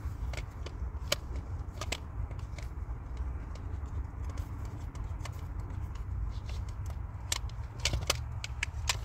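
Scattered sharp clicks and taps of small makeup containers and tools being handled, over a steady low rumble inside a car. The taps come closer together and louder near the end.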